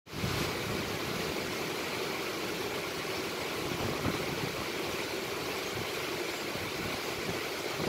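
Mountain stream rushing over rocks in white-water cascades, a steady even rush of water.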